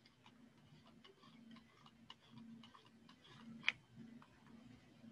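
Near silence: quiet room tone with a faint low hum and scattered faint clicks, and one sharper click about three and a half seconds in.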